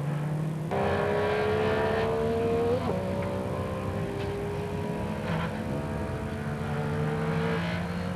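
MG Metro 6R4 rally car's 3-litre V6 engine under load, its note climbing steadily as it pulls through a gear. It changes gear about three seconds in, then climbs again.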